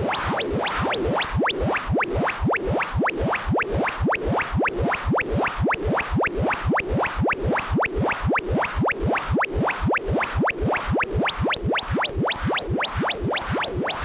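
Synthesized sound design: a fast, even train of sharply rising chirps, about three or four a second, over a grainy synthetic noise texture.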